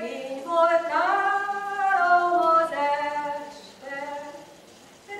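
Mixed folk choir of older women and men singing a Hungarian folk song a cappella in long held notes. The singing fades to a brief pause near the end, then the next phrase begins.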